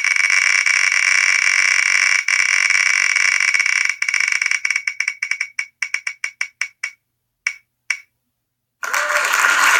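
Spinning-wheel tick sound effect from the WheelOfNames.com web page. The clicks are so fast at first that they blur together, then slow into separate ticks from about four seconds in and space out to a last few ticks as the wheel coasts to a stop. A burst of noisy sound starts near the end.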